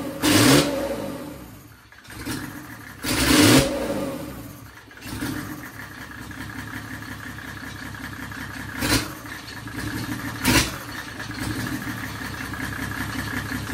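Freshly rebuilt turbocharged Mercedes OM606 inline-six diesel running on an engine stand at its first start: revved up twice in the first few seconds, each rev falling back, then settling into a steady idle. Two short sharp clicks sound over the idle in the later part.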